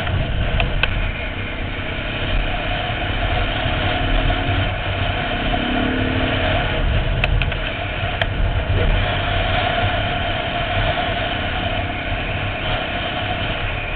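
Dirt bike engine running steadily while ridden over a gravel track, with wind rush on the helmet camera's microphone and a few sharp ticks.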